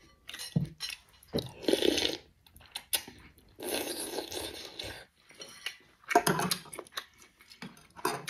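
Noodle soup being eaten: slurping of noodles and broth in several separate goes, with chopsticks and spoon clinking against a ceramic bowl.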